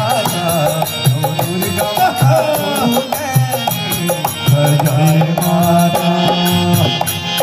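Live devotional bhajan music: a harmonium plays the melody over a steady rhythmic beat, heard through a PA system.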